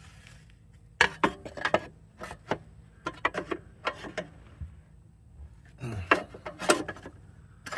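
Metal hand tools and parts clinking and knocking irregularly, a dozen or so sharp clicks and clanks with short gaps between them.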